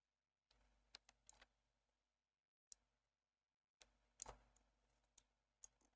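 Near silence broken by about seven faint, irregular clicks of a computer mouse.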